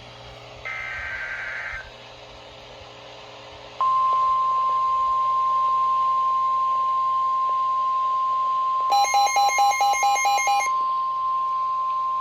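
Emergency alert broadcast tones from NOAA Weather Radio: a short burst of digital data warble about a second in, then from about four seconds in the single steady weather-radio alert tone that announces a warning. Near the end, a rapid pulsing electronic beeping overlaps the tone for about two seconds.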